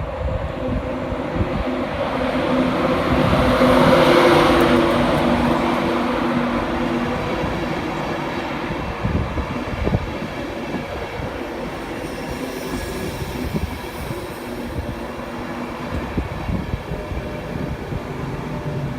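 A train running through the station, its noise swelling to a peak about four seconds in, with a steady hum and a rushing of wheels, then slowly fading away.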